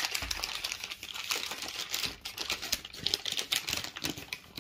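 Paper wrapping crinkling and crackling in the hands as a package of sliced cheese is opened, a quick irregular run of small crackles.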